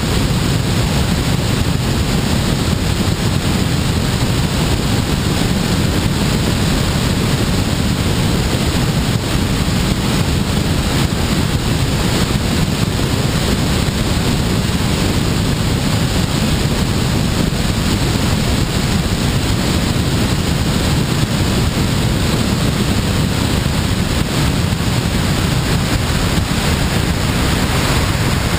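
Steady rush of airflow over a camera mounted on a glider's wing in flight: wind noise buffeting the microphone, heaviest in the low range.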